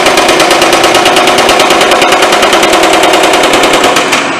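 Baileigh MH-19 power hammer pounding sheet metal with rapid, evenly spaced blows through thumbnail shrinking dies, the panel ringing at a few steady pitches. The dies are forming a tuck that shrinks the panel into a compound curve. The hammering stops about four seconds in.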